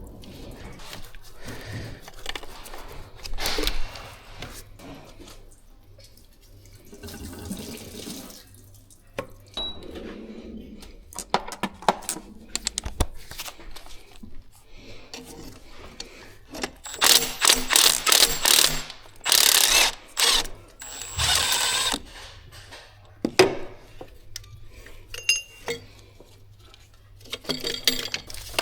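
Tool work on a car's underside: scattered clinks and knocks of tools and metal parts, then several loud short bursts of a power tool running bolts out in the second half.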